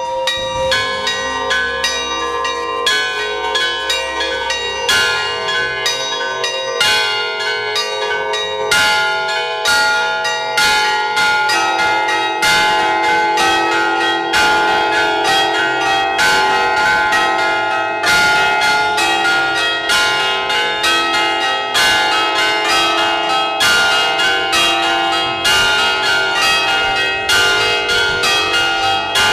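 Several church bells in a Greek Orthodox bell tower ringing together: rapid overlapping strikes in a continuous peal, each note ringing on under the next, growing denser about twelve seconds in.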